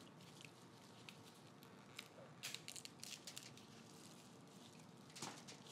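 Faint, scattered clicks and crackles of a boiled crab claw's shell being picked at and pried apart by hand. There is a cluster about two to three and a half seconds in and another just before the end.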